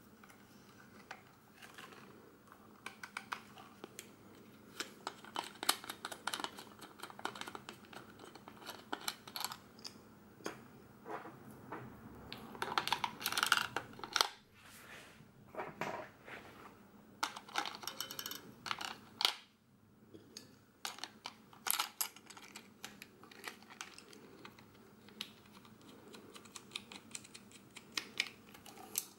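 Handling noise from the battery compartment in the grip of a Braun Nizo 156 XL Super 8 camera: irregular small clicks, taps and scrapes of plastic and metal parts as the battery holder is taken out and the screw cap is fitted back, busiest about halfway through.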